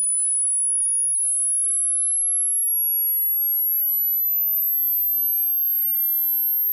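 Hearing-test frequency sweep: a single pure, very high-pitched sine tone climbing slowly and steadily in pitch, at a constant loudness.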